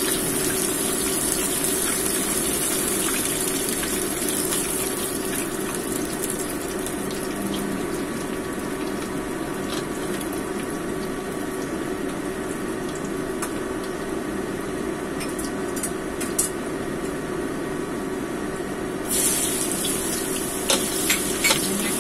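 Hot oil sizzling in a wok around a frying fish steak. The sizzle dies down in the middle and flares up again about nineteen seconds in, as chopped aromatics go into the oil, with a few clicks and scrapes of a metal spatula against the pan near the end.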